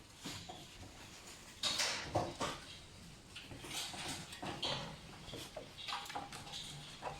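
Young pet raccoons moving about and handling things, making a string of irregular small knocks, rattles and scrabbling clatters with a few short high sounds among them.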